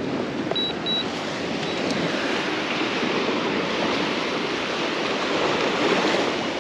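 Small surf waves washing onto a sandy beach: a steady rushing, with wind on the microphone. Two short high beeps sound about half a second in.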